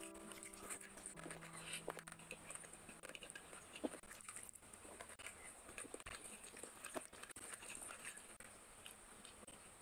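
Close-miked eating sounds: faint chewing with scattered wet mouth clicks and smacks as a curried chicken leg is bitten and eaten by hand. The last notes of background music fade out in the first second or so.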